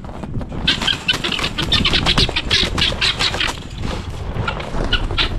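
Guinea fowl squawking in a rapid, harsh run of alarm calls as it is grabbed, starting just under a second in and thinning out near the end, over scuffling in the snow.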